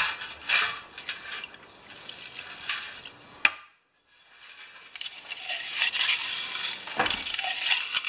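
Solvent poured and splashed over a lawn mower's recoil starter in a metal drain pan, with clinks of metal against the pan and the starter pulley being turned back and forth. The starter is slow to retract and is being flushed to free its rewind spring. About halfway the sound cuts off abruptly for a moment.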